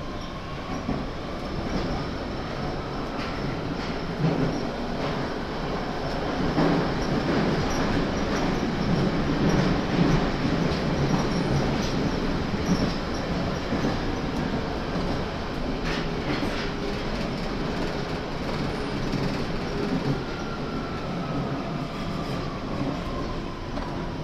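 London Underground 1992 Tube Stock train running between stations, heard from inside the car: a loud wheel-and-rail rumble that builds to a peak midway and then eases. A faint whine from the chopper-controlled traction motors rises over the first couple of seconds as the train accelerates and falls away near the end as it slows.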